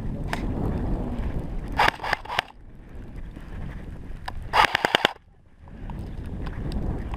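Airsoft guns firing two short strings of rapid shots, one about two seconds in and a tighter one about five seconds in, over wind rumble on the microphone.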